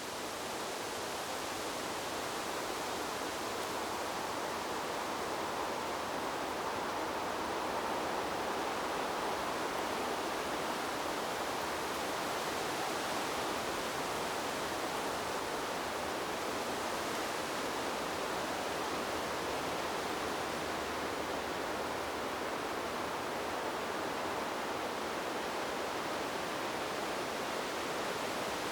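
Wind blowing through trees: a steady rushing rustle of leaves and branches, swelling slightly in the first few seconds and then holding even.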